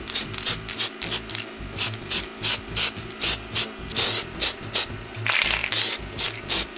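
Aerosol spray-paint can being shaken, its mixing ball clicking about three times a second, with two longer hisses of spray about four and five and a half seconds in.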